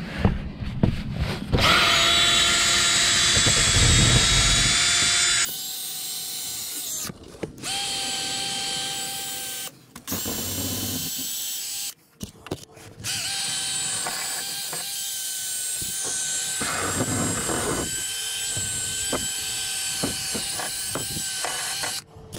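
Makita cordless drill spinning a wire brush against a rusty suspension lower control arm, scouring off surface rust. The motor whine runs in several long stretches with brief stops, harshest and loudest for a few seconds near the start.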